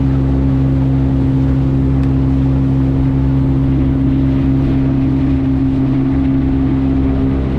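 Boat motor running at a steady speed, a loud, constant drone whose pitch does not change.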